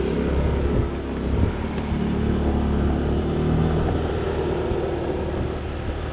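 Honda automatic scooter's engine revving as it pulls away from a standstill, then running steadily at road speed.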